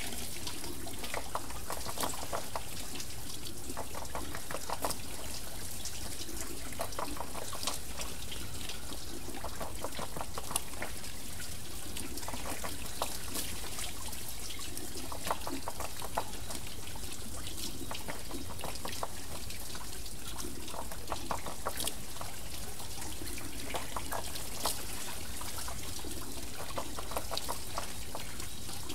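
Water wheel turning, water trickling and pouring off it in a steady stream, with a splashing swell that comes back about every two and a half to three seconds.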